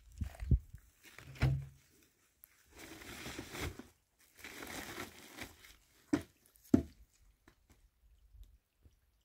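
Irregular knocks and thumps with two stretches of rustling in between, a few sharp ones near the middle, then only faint ticks near the end.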